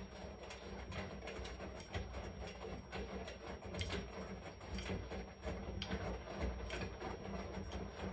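Washing machine running: a steady low rumble under frequent small, irregular clicks and knocks.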